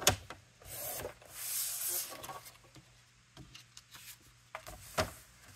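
Paper and card handled on a craft table. A sharp knock comes at the start, then a sliding, rubbing swish of paper about a second in, and a few light clicks and taps near the end.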